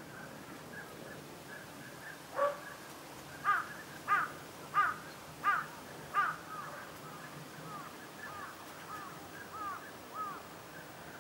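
Whooper swans calling: one call, then a run of five loud calls about two-thirds of a second apart, followed by softer calls. Faint calls from the flock go on throughout.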